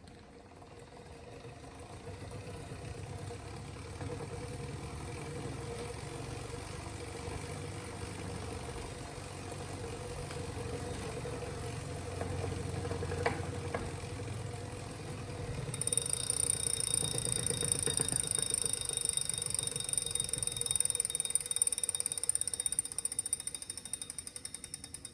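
Wahoo indoor bike trainer running with a grinding noise, the sign of a fault in the unit. A low rumble and a steady hum build over the first couple of seconds, and a high whine joins about two-thirds of the way in. Near the end it slows into rapid ticking.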